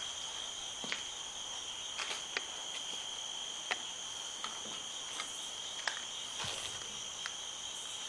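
Crickets trilling steadily in a continuous high chirring, with scattered faint clicks and taps from handling a portable speaker.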